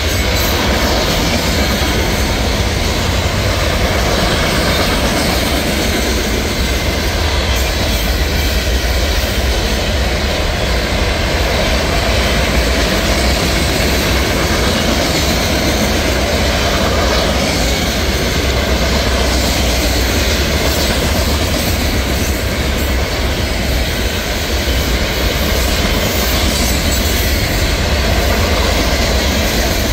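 Hopper cars of a CSX gravel train rolling past at speed: a steady, loud noise of steel wheels on the rails that does not let up.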